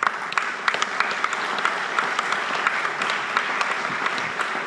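Audience applauding: many people clapping in a steady patter.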